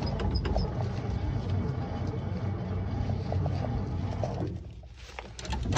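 Engine cranking over on its starter without catching, the sign of an engine that will not start. The cranking stops about four and a half seconds in and starts again near the end.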